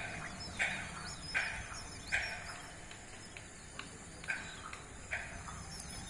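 An animal calling over and over, a short harsh call about every three-quarters of a second, pausing midway and then calling twice more. A steady high insect trill and a few faint bird chirps run underneath.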